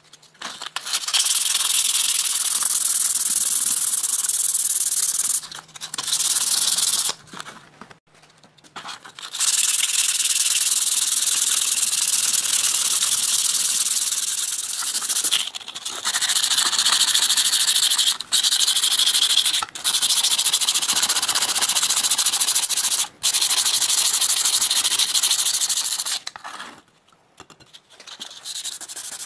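Steel of a cleaver blade being sanded in long, steady abrasive passes. The noise stops briefly a few times and ends a few seconds before the close.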